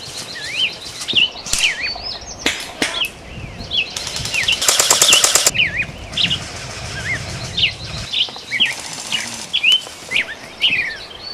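Airsoft rifle fire: a few single shots, then a rapid full-auto burst of about a second and a half. Birds chirp over and over throughout.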